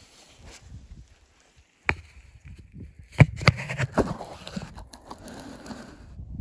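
Handling noise from a camera being moved and fitted to a spotting scope: several sharp knocks and clicks over rubbing and a low rumble on the microphone.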